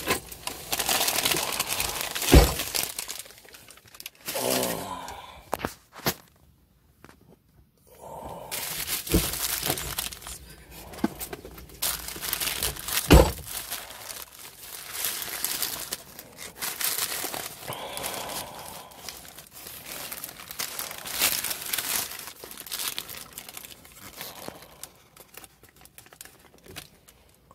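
A thin plastic deli bag and a paper sandwich wrapper crinkling and rustling as they are handled to unwrap a toasted sub. There are two sharp knocks, about two seconds in and about thirteen seconds in, and a brief lull around six seconds in.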